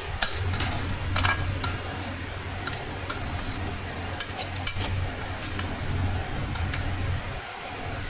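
A perforated steel spatula scrapes and clinks against an aluminium kadhai as poha is stirred, making irregular metallic clicks. A steady low hum runs underneath.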